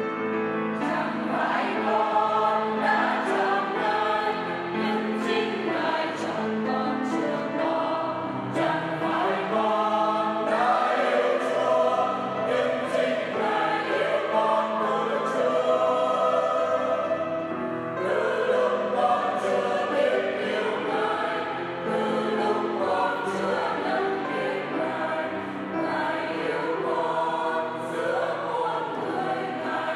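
Church choir singing, with voices sustained continuously throughout.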